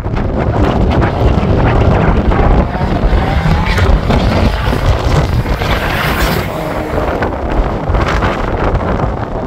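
Strong wind buffeting the microphone over a sprint racing car's engine running hard round the circuit, its revs rising and falling several times in the middle.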